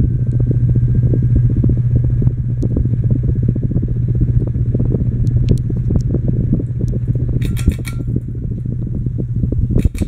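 Litex Vortex 30-inch six-blade hugger ceiling fan running, its motor giving a steady low hum over a rough rumble of moving air. A short high tone sounds about three-quarters of the way through, and a sharp click comes near the end.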